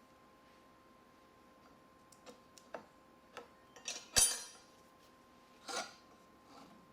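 Small clicks and taps of hard objects being handled on a work surface, with a sharper clack about four seconds in and another near six seconds, over a faint steady hum.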